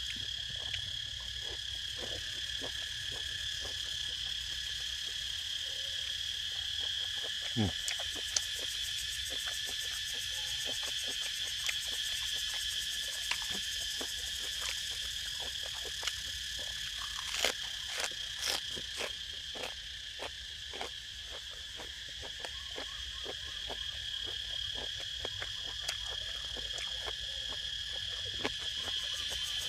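Insects chirring steadily in two high, unbroken tones, with scattered short clicks and crunches of someone eating by hand. A few sharper crunches come a little past halfway.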